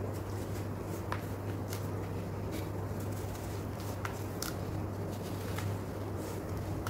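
Dry sand-cement powder crumbled and sifted through the fingers into a bucket: a soft grainy rustle with scattered light ticks of grains, over a steady low hum.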